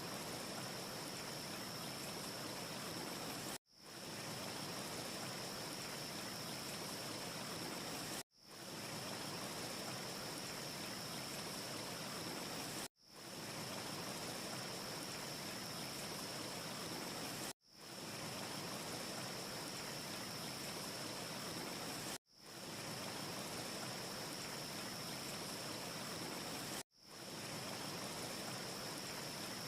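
Steady rushing noise with a thin high whine over it, from a short recorded ambience loop: it cuts out abruptly and fades back in about every four and a half seconds, six times over. No fire crackle stands out.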